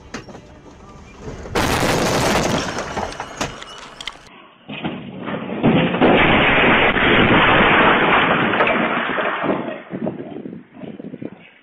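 Two vehicle crashes: first a loud burst of impact noise lasting about three seconds, then a longer, louder crash of about five seconds as metal pool fencing is smashed and water is thrown across a patio, fading into scattered knocks and clatter.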